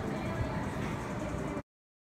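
Background music over a steady hum of shopping-mall noise, which cuts off abruptly to complete silence about one and a half seconds in.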